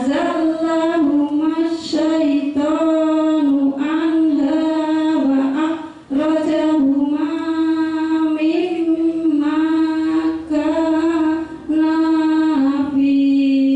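A woman chanting a Quran recitation into a microphone with tajwid, in long held melodic phrases broken by short pauses for breath.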